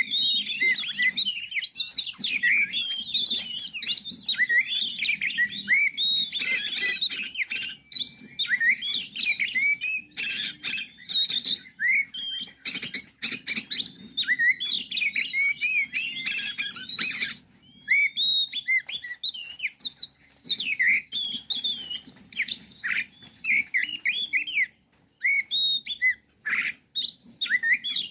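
Songbirds chirping and singing in a dense, rapid stream of short high chirps and whistled notes, with a few brief pauses.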